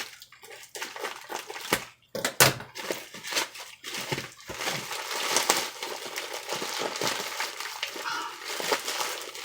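Packaging being pulled open by hand: scattered sharp rustles and snaps at first, then continuous crinkling of the wrapping material.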